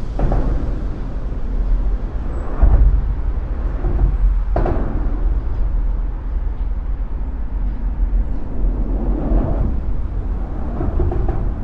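City field recording dominated by a heavy, steady low vehicle rumble, with a sharp knock about four and a half seconds in and a few lighter clicks near the end.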